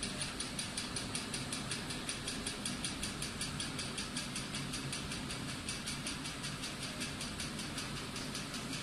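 Steady machine-like hum and hiss with a fast, even pulse.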